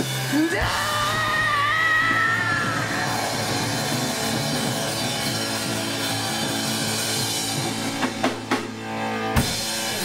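Rock band playing live: electric bass, electric guitar and a drum kit. A long wavering high note holds over the first few seconds, and a few sharp drum hits come near the end.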